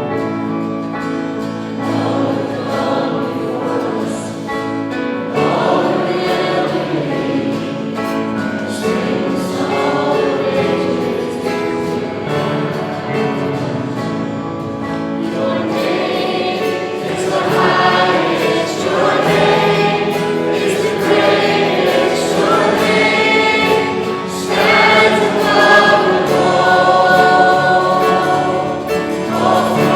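Congregational worship song: many voices singing a hymn together with instrumental accompaniment.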